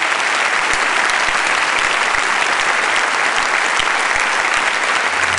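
A large audience applauding, dense continuous clapping at a steady level.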